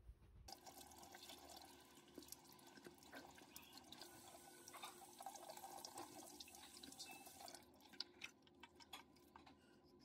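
Water running faintly from a bathroom tap into a washbasin as a toothbrush is rinsed under the stream. The flow stops about three-quarters of the way through, leaving a few drips and small clicks.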